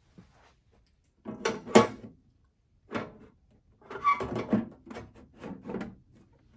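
The plastic case cover of a Zebra ZT400-series industrial label printer being handled and fitted back on: a series of clattering knocks and scrapes in three bunches, the loudest about two seconds in.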